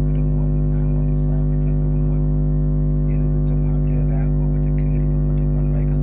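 A loud, steady low electrical buzzing hum that never changes, with faint scattered sounds above it.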